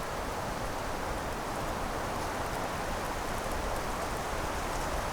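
A steady rushing noise with no change in level and no distinct events.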